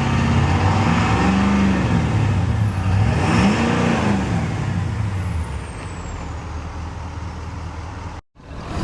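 2011 Ford F-250's 6.7-litre Power Stroke V8 turbo diesel revved up and back down twice, its turbo whistling, rising and falling with each rev, then dropping back to a lower, steady run. The sound cuts out for a moment near the end.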